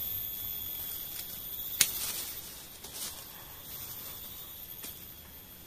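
Leafy branches of a dug-up serut shrub being pruned by hand: a sharp snap a little under two seconds in, then fainter snaps and leaf rustling. A steady high insect drone goes on underneath.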